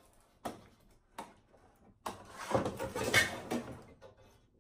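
Two light knocks, then about two seconds of clattering and scraping as the LCD panel and its metal chassis are lifted out of a 30-inch Apple Cinema Display's housing.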